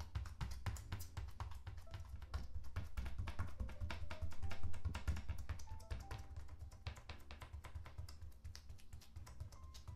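End of a wooden stick pounding a slab of seitan dough (chickpea and wheat gluten) on a glass board: rapid dull thuds, several a second, beating the dough until the gluten stretches into strands. Soft piano music plays underneath.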